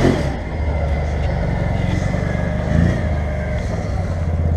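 Can-Am Outlander XT 650 V-twin ATV engine running as the machine pulls away across snow, with a brief rev about three seconds in.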